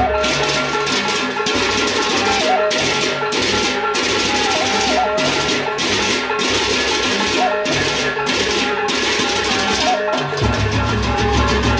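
Gendang beleq ensemble playing a gending: large Sasak barrel drums beaten with a stick and hand over fast, steady clashing of paired hand cymbals, with short repeating melodic notes above. A deep low booming layer comes in about ten seconds in.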